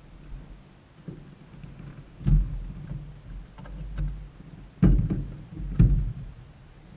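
Dull knocks and thumps carried through the airframe of a small light aircraft as the pilot climbs into the cockpit and settles in, heard over a low rumble. There are four knocks, the loudest a little past 2 seconds, near 5 seconds and near 6 seconds in.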